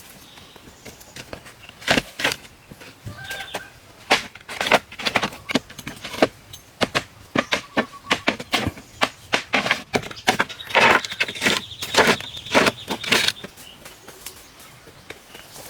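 Irregular knocks, taps and scrapes of hands and tools working material, many short strikes in quick uneven succession.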